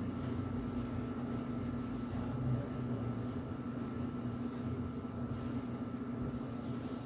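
Steady hum of running bakery equipment: a constant low drone with a thin, steady high tone above it.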